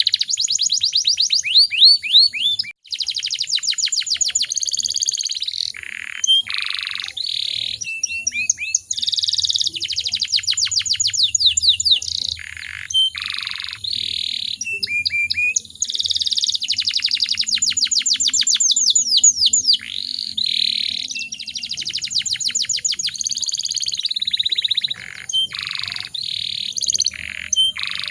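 Domestic canary singing a long continuous song of fast rolling trills, each made of rapidly repeated notes, broken by held buzzy notes and brief pauses.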